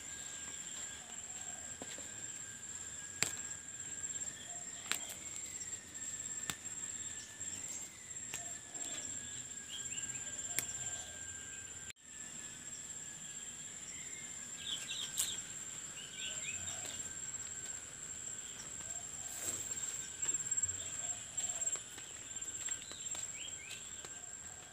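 Steady high-pitched insect trill, with short bird chirps now and then and a few scattered clicks of handling.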